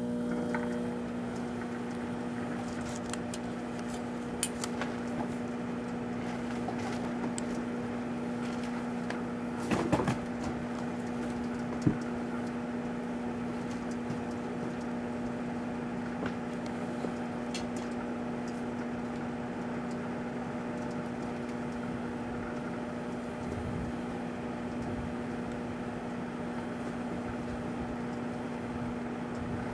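Proctor-Silex microwave oven running with a plastic shampoo bottle inside: a steady electrical hum, with a few sharp clicks, the loudest cluster about ten seconds in.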